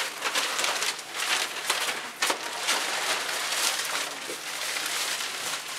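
Rustling and crinkling of paper and plastic sterile packaging being handled and unwrapped: a continuous rough, scratchy noise with many small peaks.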